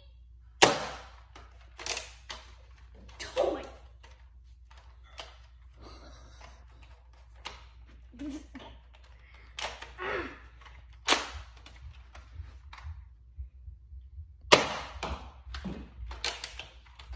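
Nerf Rival Roundhouse XX-1500 pump-action blaster being pumped and fired several times, each shot a sharp pop, the loudest about a second in and again near the end. Lighter clacks and a few short exclamations come between the shots.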